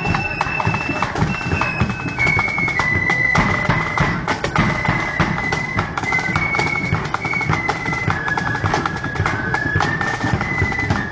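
Marching flute band playing a tune: a high melody of held flute notes stepping up and down over snare and bass drums beating throughout.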